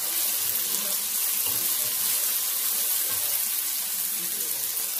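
Chopped onions frying in hot oil in a steel kadai, giving a steady sizzling hiss as they are stirred with a wooden spatula and sautéed toward golden brown.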